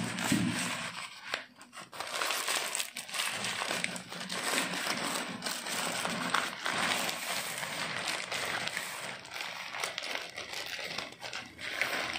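Nylon drawstring bag and clear plastic wrapping rustling and crinkling as a tripod is pulled out of the bag, with irregular small crackles throughout.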